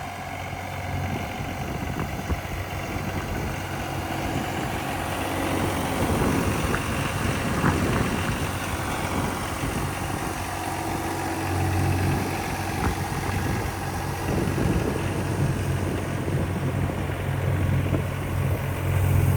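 Mini skid steer engine running steadily, its low drone growing louder at times as the machine works, with a few faint knocks.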